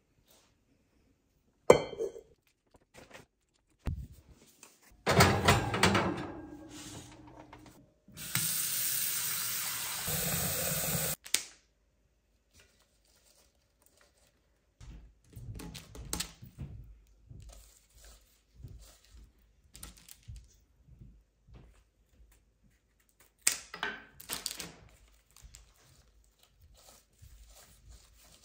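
A sharp knock and some clatter, then water running from a kitchen tap for about three seconds before it cuts off suddenly. Quieter handling sounds follow as rose stems are snipped with scissors and arranged in a glass vase, with a rustle of cellophane wrapping.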